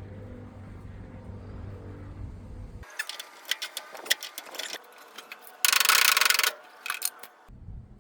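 Metal clicking and rattling from work on a seized truck door hinge, with a loud, harsh noise lasting under a second near the middle. A steady low hum is heard at the start and again near the end.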